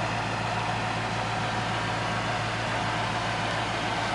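2008 Dodge Ram 1500 pickup's engine idling steadily.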